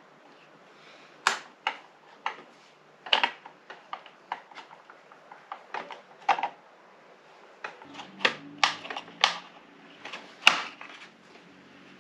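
Irregular sharp clicks and taps of a screwdriver and screws working on a Stanley chainsaw's plastic housing, with plastic parts knocking as a cover comes off. The loudest knock comes about ten and a half seconds in.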